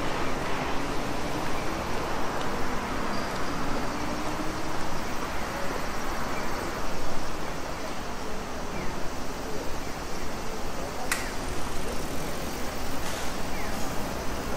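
City street ambience: a steady hum of road traffic with vehicles passing, and a single sharp click about eleven seconds in.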